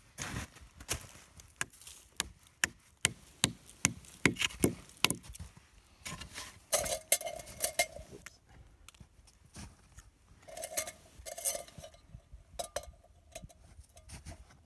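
A run of sharp knocks, then a metal camping pot clinking and scraping in two spells, with a short ringing note, as it is hung by its wire handle on a wooden spout tapped into a birch tree.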